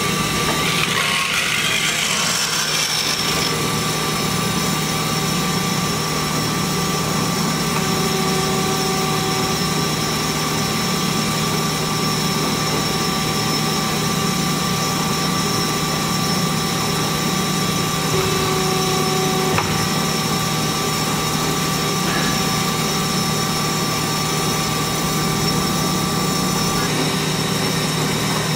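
Hyd-Mech S-23A horizontal band saw running and feeding its blade down into steel rectangular tubing: a steady low hum from the drive and hydraulics, with several constant high whines from the blade, and a brief hiss about two seconds in.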